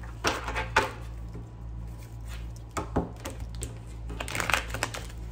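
A deck of tarot cards being shuffled and handled, in three short bursts of rustling and clicking, over a steady low electrical hum.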